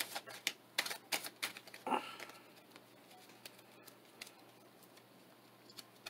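Tarot cards being shuffled by hand: a quick run of soft clicks and slaps in the first two seconds, then only faint occasional ticks. A brief low hum sounds about two seconds in.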